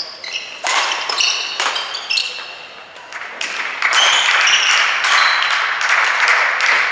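Badminton rally: sharp racket strikes on the shuttlecock and short high squeaks of court shoes on the floor. About three and a half seconds in, steady applause begins as the point ends.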